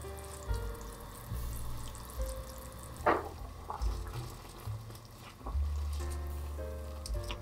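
Food frying in a pan under soft background music with sustained notes, with one brief sharp sound about three seconds in.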